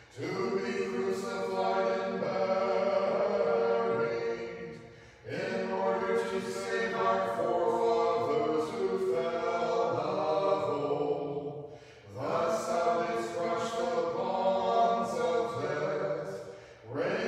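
Choir singing Orthodox vespers chant unaccompanied, in three phrases with short pauses between them about five and twelve seconds in.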